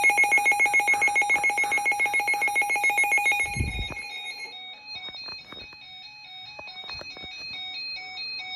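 A loud, rapidly pulsing electronic tone that stops about three and a half seconds in with a low thump, followed by a quieter run of short electronic beeps stepping up and down in pitch.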